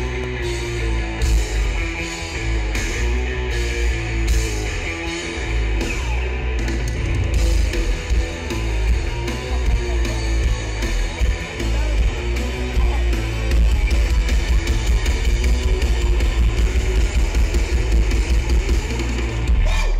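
Live rock band playing loud: electric guitars and a drum kit, heard from the audience with a heavy, booming low end.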